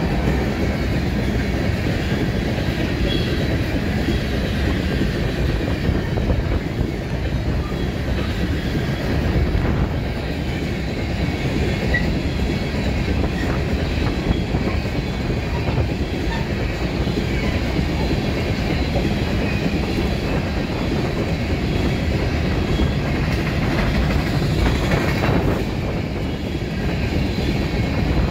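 Coal train's open-top cars rolling steadily past at close range, their steel wheels clattering over the rails.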